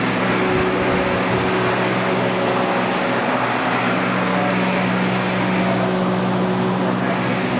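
Steady low hum with an even rushing hiss from ventilation fans.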